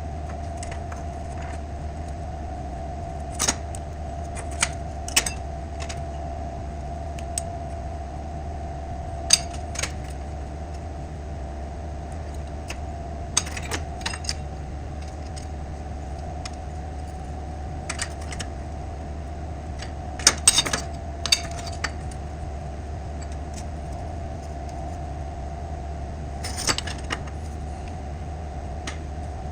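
Scattered sharp metallic clinks and clanks of steel parts being handled and set down, over a steady hum with a constant tone.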